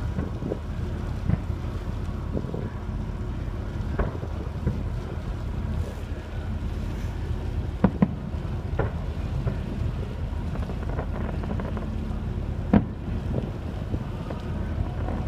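Steady low rumble of a ferry's engine with wind buffeting the microphone, and distant fireworks going off now and then as sharp pops, the loudest a quick pair about eight seconds in and a single bang near thirteen seconds.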